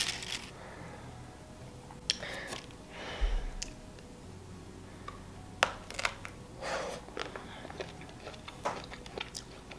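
Biting into a white-chocolate-covered strawberry and chewing it, with a few sharp mouth clicks.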